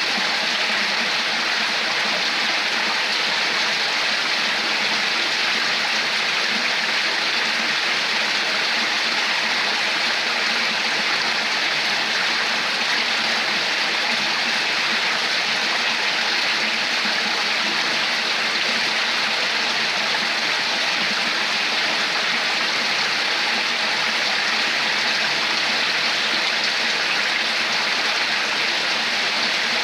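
Running water flowing and splashing in a steady, unbroken rush, like a stream or small cascade.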